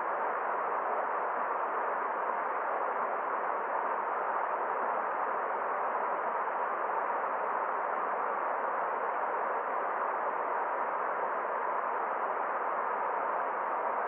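Rushing water of a shallow rocky stream running over small rapids: a steady, even hiss with no separate splashes.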